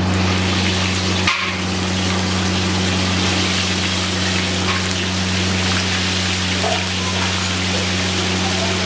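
Marinated chicken pieces deep-frying in a large iron kadai of hot oil, a loud, steady sizzle and bubbling, with a steady low hum underneath.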